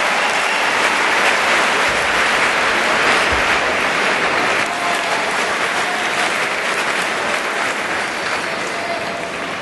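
Large arena crowd applauding after a table tennis point is won, a dense steady clapping that eases slightly toward the end.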